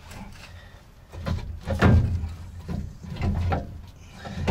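A heavy metal part being worked back into the axle housing by hand: a series of separate knocks and scrapes, roughly one every half second to a second, starting about a second in.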